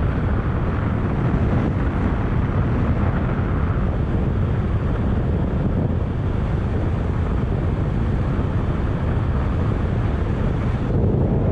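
Steady wind rush buffeting the microphone of a moving Kymco scooter, with the scooter's engine and road noise underneath.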